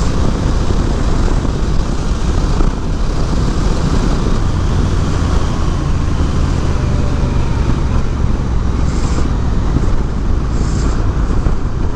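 Wind rushing over the microphone while riding a Honda Rebel 1100 DCT motorcycle, with its parallel-twin engine's steady low drone underneath.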